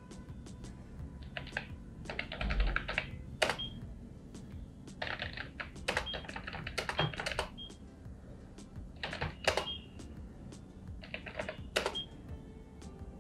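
Bursts of fast typing on a computer keyboard, runs of key clicks with pauses between entries, and a short high beep after several of the runs.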